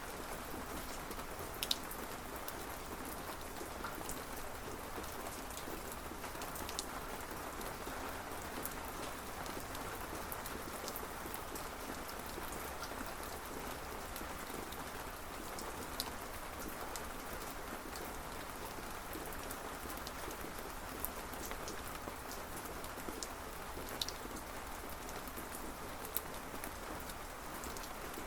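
Steady rain falling, with a few sharper single drop hits standing out now and then.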